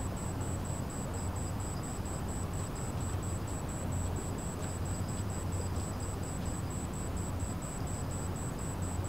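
Steady low drone from a large ferry's engines, heard across the harbour, with a thin high-pitched pulsing that repeats evenly about four times a second.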